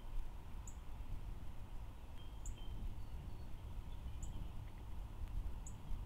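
A small bird giving a short, high chirp about every one and a half to two seconds, four times, over a low steady rumble.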